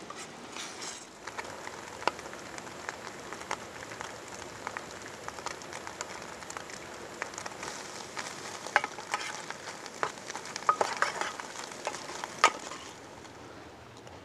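An egg and mushroom omelette sizzling in a stainless steel mess tin. A utensil scrapes and clicks against the tin as it is stirred, most sharply about nine to twelve seconds in.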